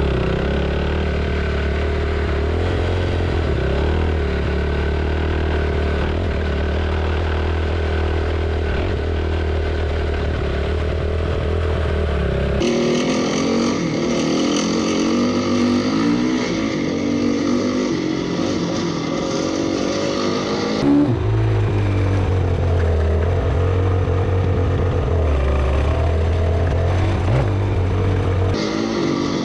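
Suzuki RM-Z250 motocross bike's single-cylinder four-stroke engine running as it rides a dirt trail, picked up by a camera mounted on the bike. The note holds fairly steady within each stretch and changes abruptly a little before halfway and again about two-thirds in.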